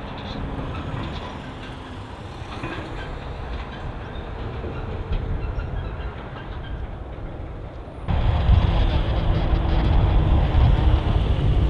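Jet airliner engines rumbling steadily, suddenly much louder about eight seconds in.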